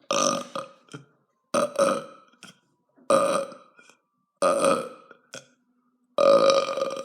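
A man burping loudly, five burps in a row about a second and a half apart, the last one the longest.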